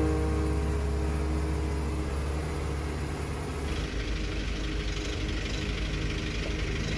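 Robur LD2002A truck's air-cooled direct-injection diesel running: a steady low drone inside the cab, then, after a cut about three and a half seconds in, a rougher rumble heard from outside as the truck drives toward the camera. A held music chord fades out in the first couple of seconds.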